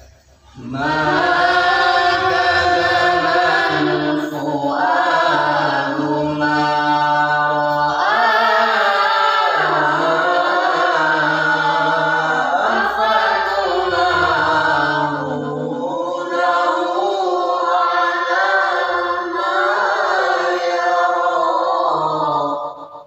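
A boy's voice reciting the Quran in the melodic tilawah style, with long held notes that bend and turn in pitch and a few short breaks for breath.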